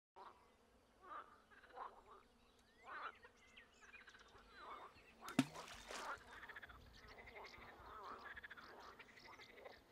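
Frogs croaking faintly, many short overlapping calls. About five seconds in, a single sharp plop of something dropping into the water, the loudest sound here.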